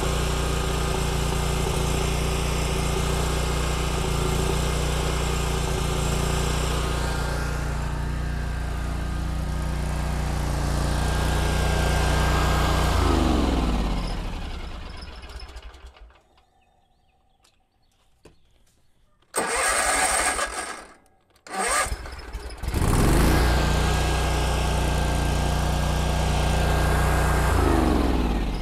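Kubota Z122R zero-turn mower engine running smoothly with the choke off, now that a new fuel filter has cured its fuel starvation. About halfway through it is shut off and winds down, is cranked a few seconds later, catches and runs back up to speed, then winds down again near the end.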